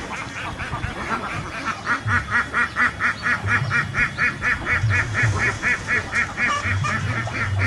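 Duck quacking in a fast, even series of short calls, about four a second, getting louder about two seconds in.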